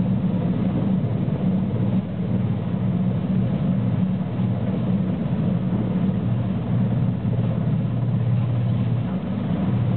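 NH90 Caiman naval helicopter hovering low and lifting away, its twin turboshaft engines and main rotor running as a steady, loud, low drone.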